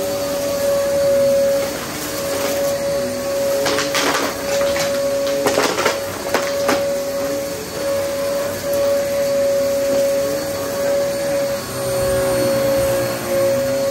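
VacMaster vacuum cleaner running with a steady motor tone, sucking up crunchy debris from under a rug, with clusters of crackling clicks about four to seven seconds in.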